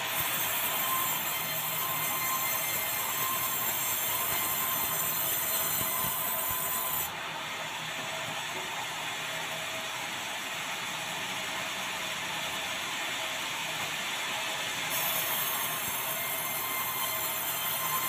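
Sawmill band saw cutting dry bengkirai (yellow balau) hardwood, a steady mechanical running noise with a high whine over it. The high whine fades about seven seconds in and the saw runs on a little quieter, then the whine comes back near the end.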